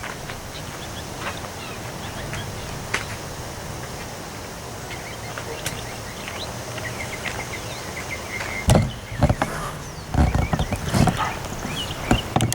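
Storm ambience: a steady wash of wind and rain with small birds chirping. About two-thirds of the way in, several loud gusts of wind buffet the microphone in rough bursts.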